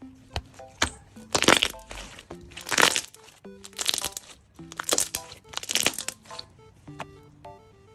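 Bubblegum slime toy being squeezed and worked by hand, giving five loud crackling, crunching squishes about a second apart, over background music with a simple melody.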